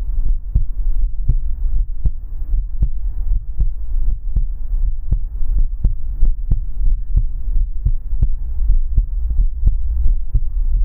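Human heartbeat heard close up, a steady run of regular low thumps over a continuous low rumble and faint hum.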